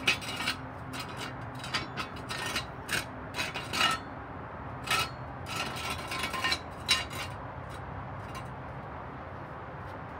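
Metal hand tools clicking and rattling during oil-change work under a vehicle: a string of irregular sharp clicks with a short metallic ring, which stop about seven seconds in.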